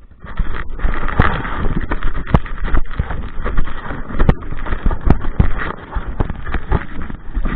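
Irregular knocks and footfalls over loud rumbling handling noise on the microphone, as of someone walking with the recording device on them.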